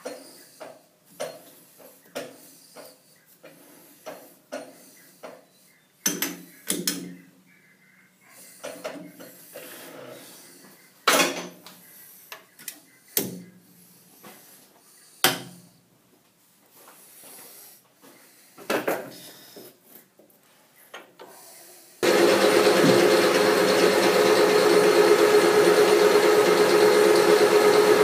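Scattered knocks and taps as a part is dialled in by hand in a lathe's four-jaw chuck with a dial indicator. After about twenty seconds the sound switches abruptly to a metal lathe running under load, turning metal with coolant flowing: a loud steady hum with a few held tones.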